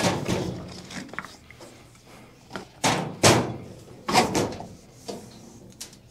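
Knocks and scraping as a flexible corrugated plastic sleeve is slid along a metal shade roller tube on a workbench, several separate knocks with the loudest about three and four seconds in.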